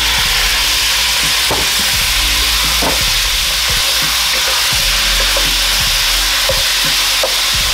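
Small pieces of beef steak frying in hot oil in a skillet: a steady, loud sizzle.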